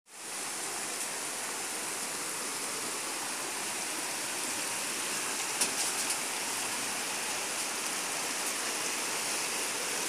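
Steady rush of a shallow mountain stream running over rocks, with a few faint taps about six seconds in.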